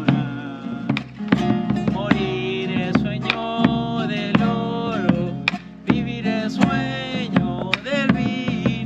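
Live Argentine folk music: an acoustic guitar strummed, a bombo legüero drum beaten with sticks on its hide head and wooden rim, and a voice singing over them.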